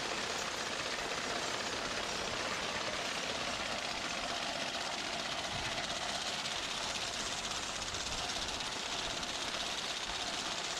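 Horse-drawn, ground-driven sickle bar mower running while it cuts hay: a steady mechanical clatter from the cutter bar and its drive.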